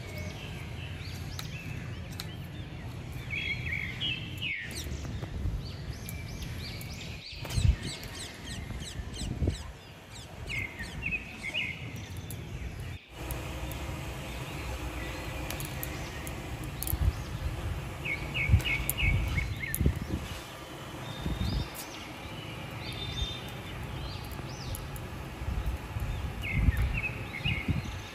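Steady outdoor background noise with a bird calling again and again in quick runs of three or four short chirps. Occasional soft knocks and rustling come from cutting vegetables and handling sprigs of fresh curry leaves.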